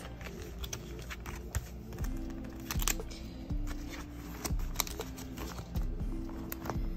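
Light crinkling and clicking of clear plastic binder pocket pages and sticker-sheet bags as the sheets are slid in and handled, in a string of short, irregular ticks.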